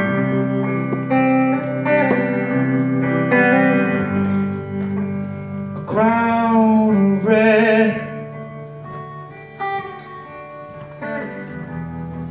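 Several acoustic guitars playing the slow introduction of a song live, with a long wavering held note about six seconds in and a softer stretch after it.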